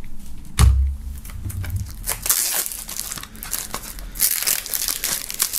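Cellophane shrink-wrap being torn and peeled off a plastic CD jewel case by hand, crinkling densely for the last few seconds. A thump about half a second in is the loudest single sound.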